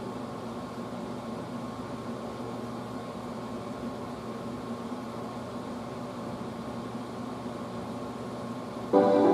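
Steady hum of an air conditioner running in the room. Near the end, music with piano notes starts suddenly and much louder.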